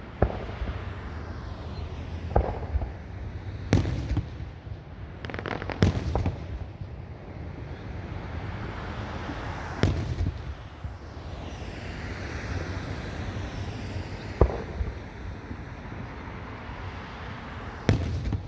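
Fireworks display: sharp bangs at irregular intervals, from under a second to about four seconds apart, over a steady background rumble.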